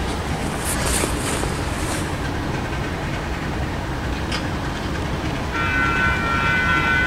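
Diesel locomotive approaching, a steady low rumble. About five and a half seconds in, a steady high chord of several tones begins and carries on.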